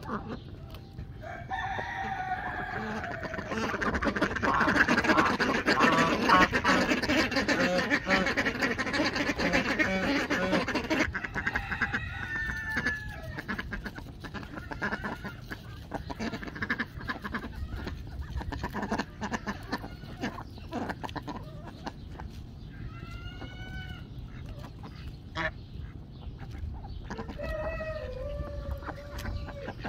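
Farmyard poultry calling: chickens clucking, with crowing, and ducks among them. Many calls overlap in the first ten seconds or so, then single calls come now and then.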